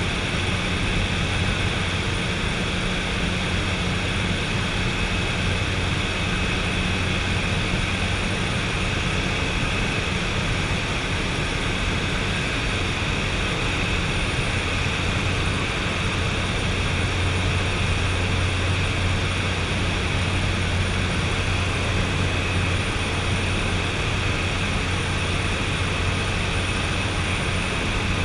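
de Havilland DHC-3 Turbine Otter's turboprop engine and propeller droning steadily in cruise, heard inside the cabin, with a thin steady high whine above the drone.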